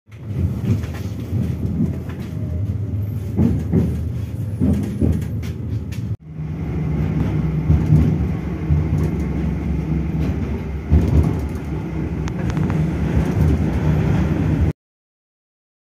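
Tram riding along the rails, heard from inside the car: a steady low rumble with scattered knocks, and a steady low hum in the second half. The sound drops out for an instant about six seconds in and cuts off suddenly near the end.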